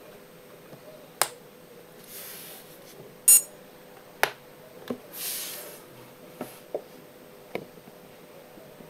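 Sharp plastic clicks and two short sliding rubs as a small twistable digital photo frame is handled on a table, with about seven clicks, the loudest a little over three seconds in.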